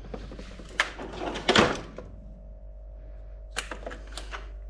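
Hand tools working on a motorcycle engine's top end: a few sharp metal knocks and clicks, with a longer scraping rattle about a second and a half in, as screws that were done up very tight are undone.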